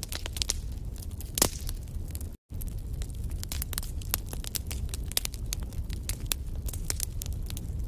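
Wood fire in a fireplace crackling, with frequent sharp pops over a steady low rumble from the flames. One louder pop comes about a second and a half in, and the sound cuts out for a split second a little after two seconds.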